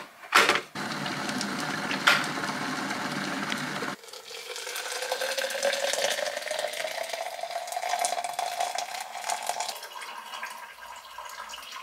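Hot water poured from a glass electric kettle into a plastic tumbler, the pitch rising steadily as the tumbler fills. Before the pour, a few clicks and a steady rushing noise that stops abruptly. Near the end, a refrigerator's water dispenser running.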